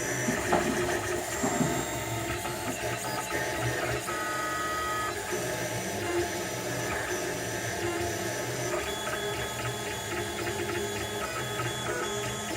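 Printrbot 3D printer printing: its stepper motors whine in shifting pitches as the print head and bed move, with two louder ticks in the first two seconds.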